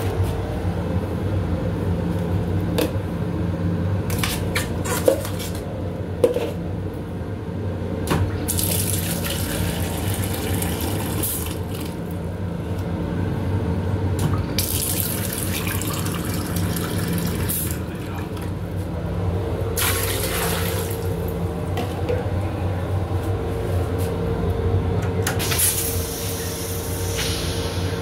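The faucet of an M7 railcar's restroom sink runs in four short bursts of two to three seconds each, water splashing into the basin. Under it sits the steady hum and rumble of the moving train, and there are two sharp clicks about five and six seconds in.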